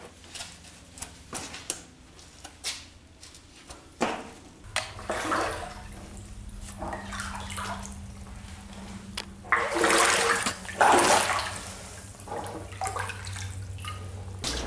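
Climbing and wading through shallow water inside a drain pipe: knocks, scrapes and splashing steps, with the loudest splashing about ten seconds in. A low steady hum runs underneath from about five seconds in.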